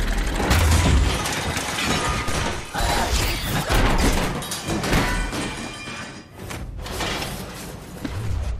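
Film sound effects of a clock tower interior breaking apart: glass shattering and metal debris crashing in a dense run of impacts, with deep booms.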